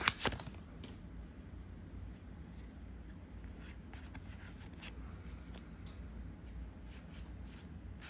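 Faint handling of trading cards, with a few soft ticks and slides as cards are flipped through, over a low steady room hum.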